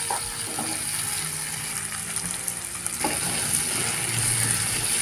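Chopped onion and tomato sizzling in oil in a nonstick kadai while a spatula stirs and scrapes through them, with a sharper scrape about three seconds in.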